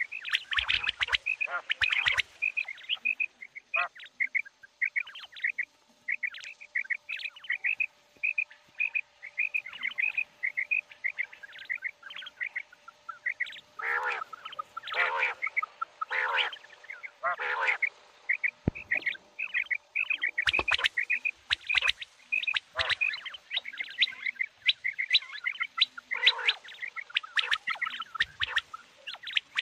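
Common quail calling: rapid runs of short, high chirping notes, broken by louder, harsher calls, the 'kirak' sound used by quail keepers and hunters.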